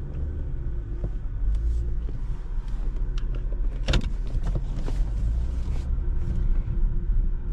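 A car running, a steady low rumble, with one sharp click about four seconds in.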